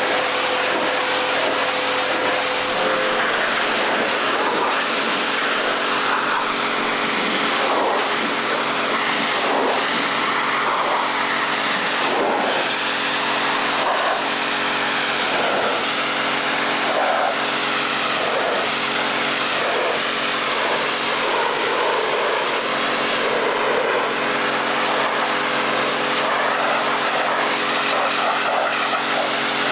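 Pressure washer running steadily with its water jet hissing against the van's bodywork; a high whine drops out about three seconds in.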